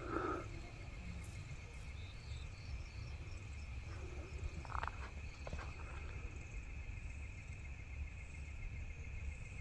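Crickets chirring steadily in the night forest, with two brief distant animal calls, one right at the start and one about five seconds in, most likely sambar deer alarm calls, the sign of a tiger moving nearby.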